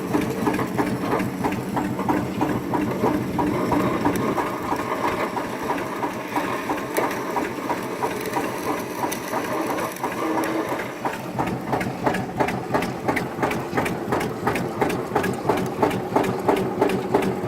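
Diesel tractor engine running steadily, with a fast regular clatter of about three beats a second that grows more distinct in the second half.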